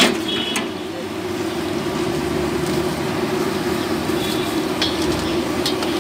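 Potato chops deep-frying in a large wok of oil: a steady sizzle over a constant low rumble, with a sharp click right at the start and a few light clicks near the end as a metal skimmer works the oil.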